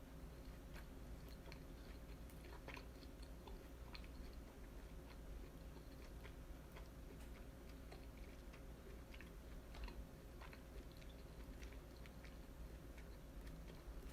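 A person chewing grilled yakitori chicken close to the microphone: many scattered soft mouth clicks and bites, over a faint steady hum.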